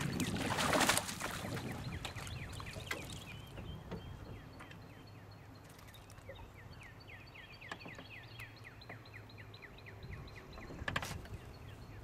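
A hooked bass splashing at the surface, then a long run of quick, even ticks from the fishing reel, about four a second, as the fish is played. Another splash comes near the end as the fish reaches the boat.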